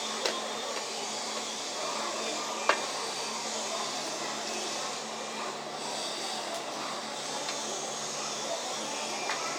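Steady rushing noise of a running blower or motor, with a sharp click about a quarter second in and a louder one near three seconds in.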